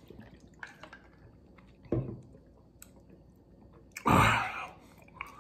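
A man drinking from a plastic shaker bottle, with quiet gulping and mouth sounds and a short thud about two seconds in. About four seconds in comes a loud, breathy exhale.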